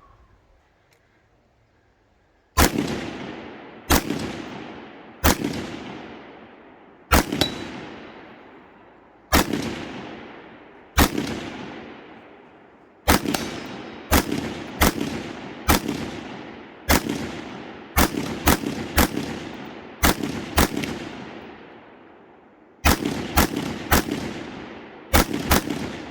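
Rifle fire in an IPSC rifle stage: about twenty shots in an uneven string, from single shots a second or two apart to quick doubles and triples, each followed by a long fading echo. The first shot comes about two and a half seconds in.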